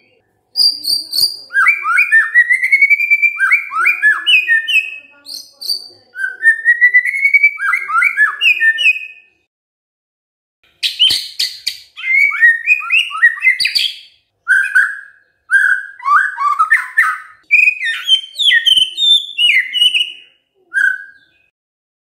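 White-rumped shama singing loud, varied whistled phrases of rising and falling notes. About halfway through it breaks off for a second, then resumes with a quick run of sharp, clipped notes followed by more whistled phrases.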